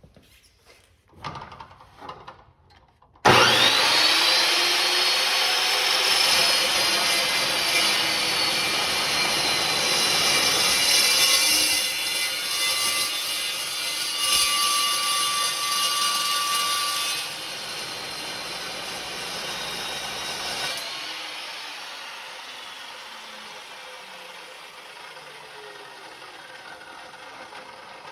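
Evolution S380CPS cold cut metal chop saw: a few clicks, then the motor starts suddenly with a rising whine and the blade cuts through metal stock with a loud, steady screech. It eases after about 14 seconds, and the blade then winds down and fades away.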